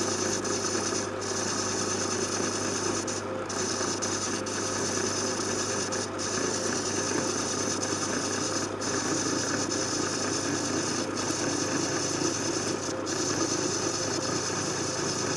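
Metal lathe running steadily while a parting-off blade cuts through an aluminium workpiece, a continuous rubbing, rasping cutting sound over the machine's hum.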